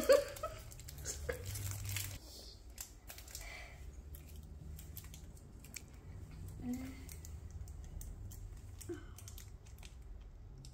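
Chocolate bar wrappers crinkling and tearing as they are opened by hand, a scatter of short, sharp crackles.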